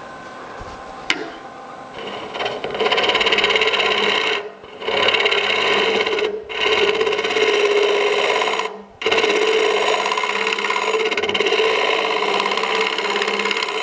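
Wood lathe spinning an elm bowl with a steady hum, then a negative rake scraper cutting the inside wall from about three seconds in. The cut makes a loud, even scraping that stops briefly three times as the tool lifts off.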